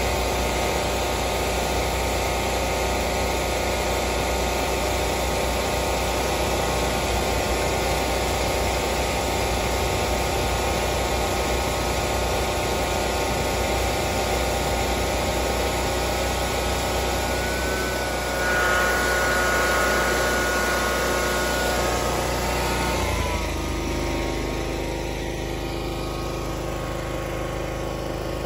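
Engine of an Ariens Mammoth snow-plowing machine running steadily while its blade pushes heavy wet snow. About two-thirds of the way through, a high whine joins and the sound grows a little louder. A few seconds later the engine drops to a lower, quieter idle.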